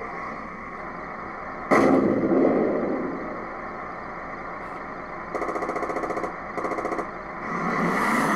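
Electronic sound unit of a Tamiya 1/16 M551 Sheridan RC tank playing its simulated engine running throughout. About two seconds in comes one loud cannon shot, the loudest sound. Around five to seven seconds in there are two rapid bursts of machine-gun fire, and near the end the engine sound revs up as the tank starts to move.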